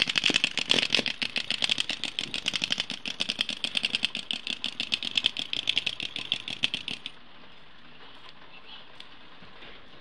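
Fidget spinner toy clicking as it spins: a fast run of ticks that fades and stops about seven seconds in.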